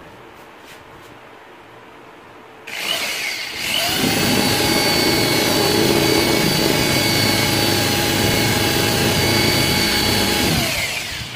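Electric drill boring into the end of a wooden handle clamped in a vise. The motor spins up with a rising whine about three seconds in, runs steadily for about seven seconds, then winds down near the end.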